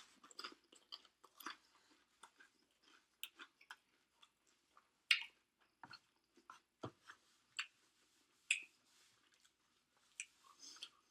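A person chewing Chinese takeout food, with irregular soft wet mouth clicks and smacks.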